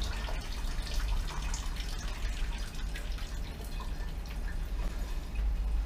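Sangiovese wine draining freely from a basket press, dripping and trickling from the press tray's spout into a funnel on a glass demijohn, over a low steady hum.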